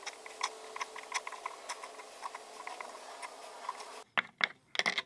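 Two gel pens writing on paper at once, their tips making short, irregular ticks and light scratches; near the end a few sharper, louder clicks.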